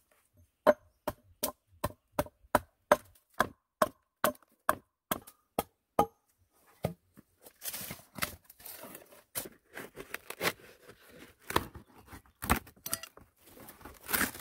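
Hatchet chopping into a wooden plank: a steady run of sharp blows, about two and a half a second, for some five seconds. Then, after a short pause, irregular knocking, scraping and cracking of wooden boards being handled and worked.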